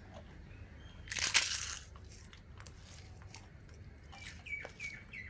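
Pappadam being crushed by hand into rice: one loud, crackly crunch about a second in, lasting under a second.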